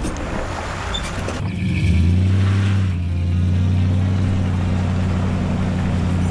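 Fishing boat's motor running under way with a rush of wind and water. About two seconds in, the throttle goes up and the engine settles into a steady higher drone, which cuts off suddenly at the end.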